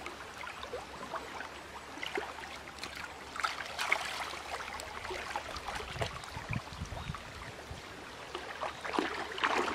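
Water splashing and sloshing as a man wades and works his arms and a fishing net through shallow river water, with irregular splashes that are loudest about four seconds in and again near the end.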